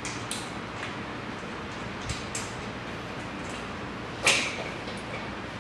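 Light clicks and taps from hands fastening a bolt at a joint of a metal furniture frame, then one sharper knock about four seconds in, over a steady hiss.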